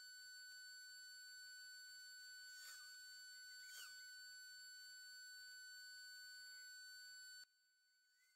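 Faint, steady high-pitched electronic whine, with two brief chirps about three and four seconds in. Near the end the whine and background hiss drop sharply in level, and the whine carries on much fainter.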